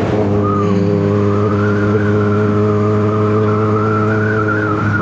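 Yamaha XJ6's inline-four engine running at steady revs while the motorcycle cruises, with wind rush over the helmet microphone and a wavering high whistle above the engine note.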